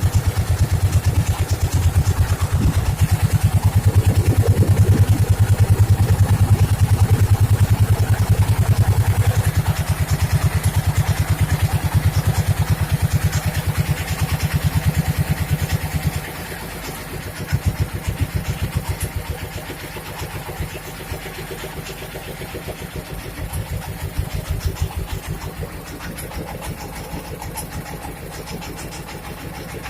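A boat engine running with a steady, rapid low throb, loud at first and dropping to a lower level about sixteen seconds in, as if throttled back.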